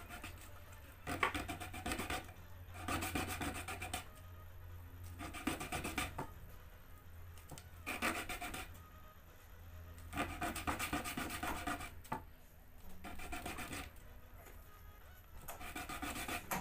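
A piece of plastic toothbrush handle being filed by hand into a lure body: bursts of rapid rasping strokes, each about a second long, some seven times, over a faint steady low hum.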